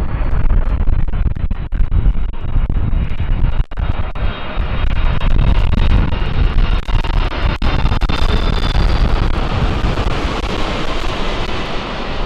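Four-engine jet noise from a Boeing 747-400 freighter: a continuous loud rumble, with a high whine coming in around the middle and the hiss growing stronger toward the end as the jet draws nearer.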